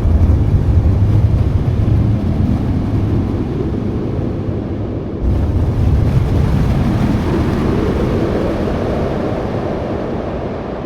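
u-he Diva software synthesizer playing a noise-based effects patch: a deep, windy rumble like surf or a passing vehicle. The sound is triggered again about five seconds in, then its filter slowly opens in a rising sweep while the sound fades.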